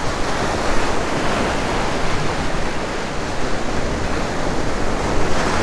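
Surf rushing in and breaking over the rocks at the water's edge, a steady wash of water that grows louder near the end.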